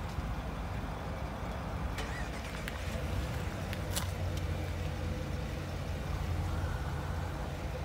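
Vehicle engine idling with a steady low rumble, with a few faint light clicks over it.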